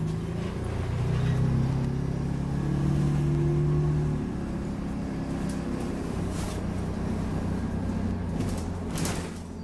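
Optare Solo single-deck bus's diesel engine pulling away, its pitch rising for about four seconds, then dropping at a gear change and running on steadier, with a few sharp clicks or rattles in the second half.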